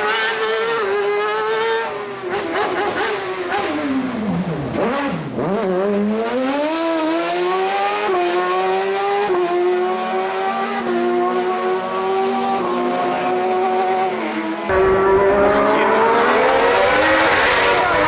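Racing car engine pulling hard up a hillclimb. About four seconds in, the revs drop sharply, then climb again through several quick upshifts. About fifteen seconds in, the sound cuts abruptly to another, louder race car revving up.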